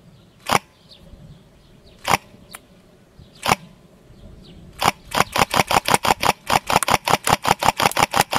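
G&D DTW electric airsoft rifle firing 0.25 g BBs: three single shots spaced well apart, then from about five seconds in a fast even string of shots, about seven a second.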